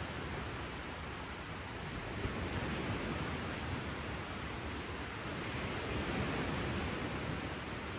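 Steady rushing of wind and lake waves on the shore, swelling louder twice.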